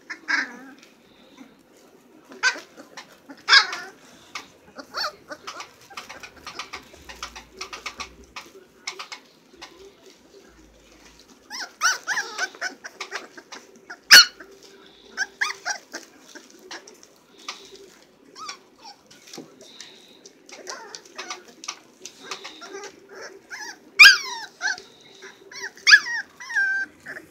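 A litter of young puppies at play, giving short high yips and squeals on and off, with a few louder sharp yelps about halfway through and near the end. A faint steady hum runs underneath.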